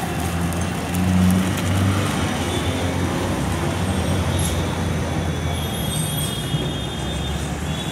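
Road traffic: a steady low rumble of vehicle engines running close by.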